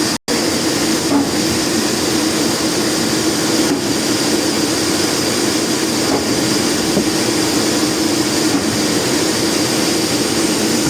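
Large sawmill blade running steadily, a loud and even machine noise with a low hum.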